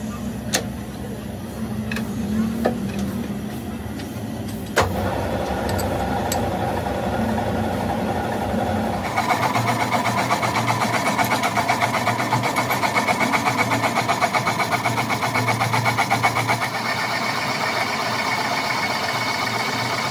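Metal lathe turning a crankshaft. There are clicks and knocks from the controls, and a sharp knock about five seconds in, after which the machine runs steadily. From about nine seconds a louder, rhythmic pulsing sound sets in as the tool cuts the end of the spinning crankshaft, throwing off chips.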